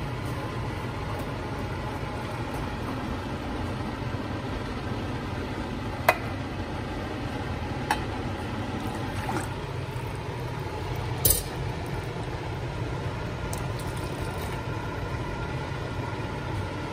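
A metal skimmer ladle knocks sharply against an aluminium pot three times while a coconut-milk curry is stirred; the last knock is the loudest. Under it runs a steady low rumble.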